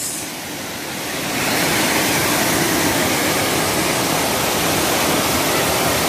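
Water of a small waterfall pouring over rocks, a steady rushing noise that grows louder about a second in and then holds level.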